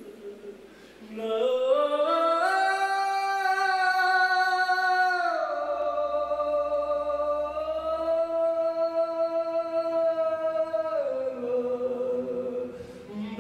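A male voice singing in an operatic style, unaccompanied or nearly so. It rises into a high held note about two seconds in, steps down to another long held note near the middle, then sinks lower toward the end.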